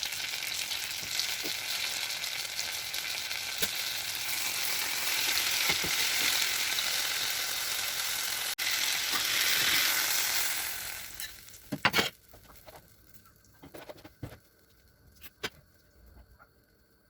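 Breadcrumb-coated potato and sausage pieces sizzling as they fry in hot oil. The sizzling dies away about eleven seconds in, followed by a few sharp clicks and knocks.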